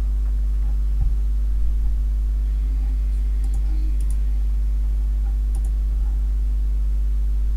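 Steady electrical mains hum, with a few faint clicks at a computer about halfway through as a timed-out page is refreshed.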